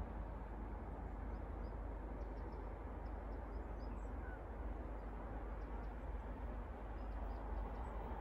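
Steady outdoor background rush, heaviest in the deep lows, with faint short bird chirps and calls scattered through.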